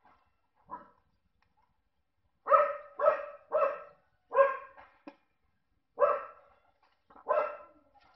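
A dog barking: one soft bark about a second in, then six loud barks spaced about a second apart.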